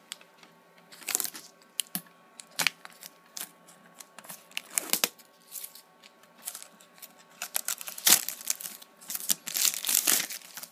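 Plastic shrink wrap being torn and peeled off a metal collector's tin, in irregular crinkling, tearing crackles that come thicker and louder in the second half.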